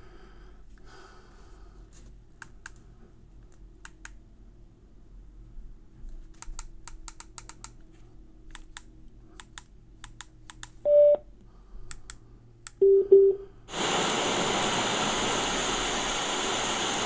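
Clicking of the buttons on a Basspal waterproof Bluetooth shower speaker. The speaker gives one short beep, then two lower beeps, then switches to a loud, steady hiss of FM radio static: the radio has no station tuned.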